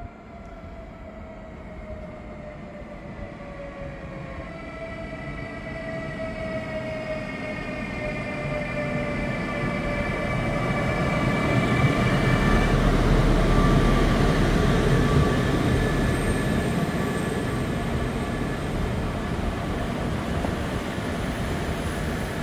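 Train approaching, several whining tones slowly falling in pitch as it grows louder, then a loud rumble of running gear from about halfway through.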